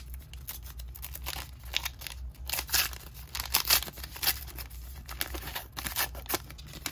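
Foil wrapper of a 1991 Upper Deck baseball card pack being torn open and crinkled by hand: a run of irregular rips and crackles, most intense a few seconds in.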